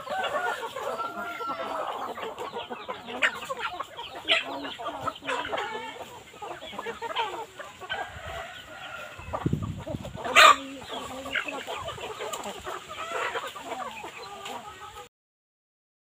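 A flock of chickens clucking and calling, with one sharp knock about ten seconds in; the sound cuts off a second before the end.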